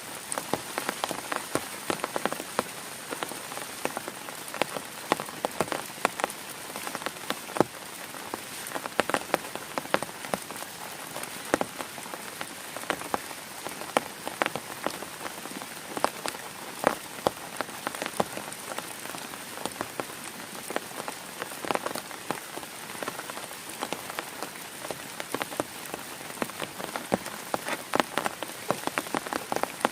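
Heavy rain falling on a tent: a steady hiss with many sharp, irregular drop hits.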